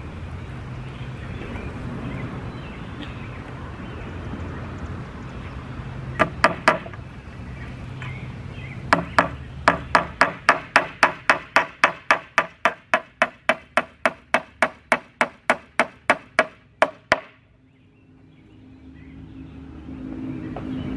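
Claw hammer driving a finishing nail into a wooden board. A few light taps first, then a long even run of about thirty blows, roughly four a second, that stops abruptly.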